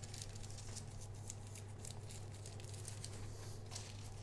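Faint, scattered light taps and rustles of fingers pressing a soft cottage-cheese and rice-flour dough into the rim of a pizza crust, over a low steady hum.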